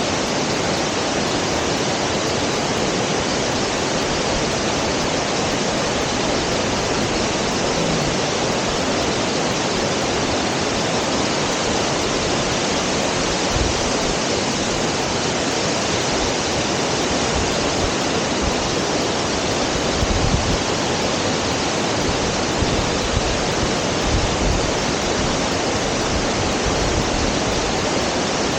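Shirahige Falls, groundwater pouring about 30 m from cracks in a lava layer into the Biei River: a loud, steady roar of falling water.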